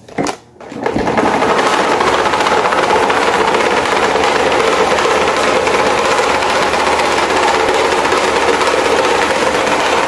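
Small electric desk fan switched on with a brief click, then running up to speed within about a second and whirring loudly and steadily, its motor and improvised blades making an even mechanical hum.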